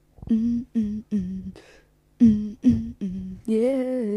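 A person humming a tune: two groups of three short notes, then a long held note that wavers in pitch near the end.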